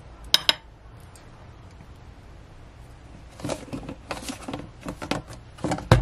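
Metal tongs clicking twice on a ceramic plate as a piece of radish kimchi is set down, then, after a pause, a run of clicks and clatters from the tongs, plate and plastic food container, the loudest near the end.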